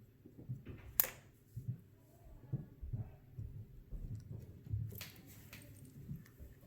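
Small handling sounds of a folding knife and a screwdriver as the knife's body screws are driven in: soft taps and rustles, with a sharp click about a second in and another about five seconds in.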